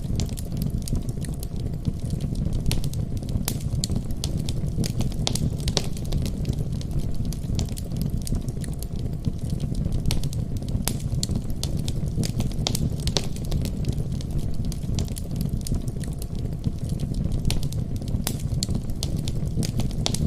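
Wood fire burning in a fireplace: a steady low rumble of flames with frequent sharp crackles and pops at irregular intervals.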